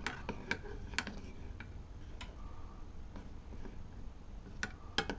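A spoon knocking and scraping against a saucepan while stirring milk curdled with vinegar: about eight short, irregular clicks.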